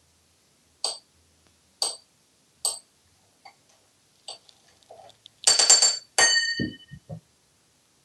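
An African grey parrot striking a metal spoon against a marble sink and counter. There are three sharp clinks about a second apart and a few lighter taps, then a quick rattling clatter with a metallic ring, which ends in a few dull knocks.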